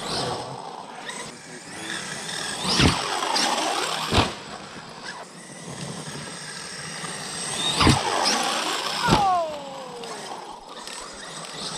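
Electric motor of a 1/5-scale Losi DBXL-E RC buggy whining up in pitch, then two sharp thuds; the pattern comes twice as the buggy hits the ramp and lands a jump. After the second landing the motor whine falls away.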